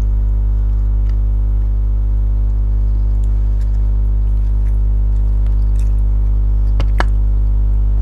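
Steady low electrical mains hum, with faint wet mouth sounds and soft clicks of someone eating chicken, and one sharper click about seven seconds in.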